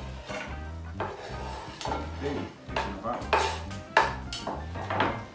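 Kitchen knife chopping an onion on a wooden cutting board: irregular sharp knocks of the blade on the board, roughly one to two a second.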